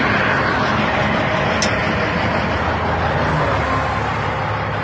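Truck engine idling, a steady low hum heard inside the cab, with one brief sharp click about a second and a half in.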